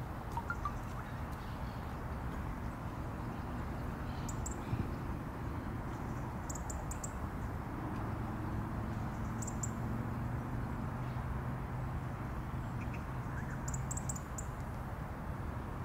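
European robin giving short clusters of sharp, very high 'tic' calls, about five times, over a steady low rumble of distant city traffic.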